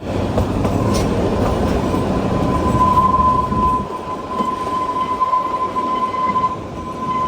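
Kalka–Shimla narrow-gauge toy train running along the track: a dense rumble and rattle, with a thin, steady high tone above it. The deep part of the rumble drops away about four seconds in.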